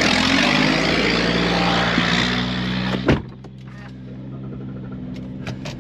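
A combine harvester's engine runs loudly with a heavy rush of machine noise. About halfway through it gives way abruptly to a quieter, steady engine hum with a few light clicks.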